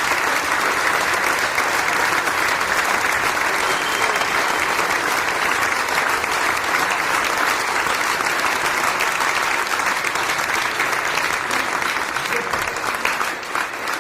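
Studio audience applause, the kind used on sitcoms: a dense, steady wash of many hands clapping, thinning slightly near the end.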